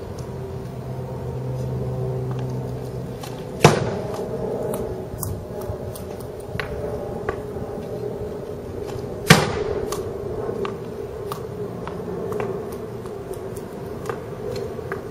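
Two hard slap shots about five and a half seconds apart, the first roughly three and a half seconds in: a hockey stick cracking a paint-covered ball into a canvas hung on wooden boards, each hit followed by a brief ringing. Between them, lighter clicks of the stick blade tapping the ball, over a steady background hum.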